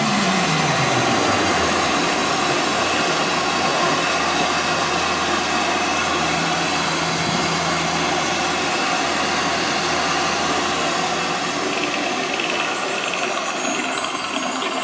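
Loudspeaker soundtrack of a projection-mapped light show playing a dense, steady rumbling sound effect with a low drone underneath. A tone slides down during the first second.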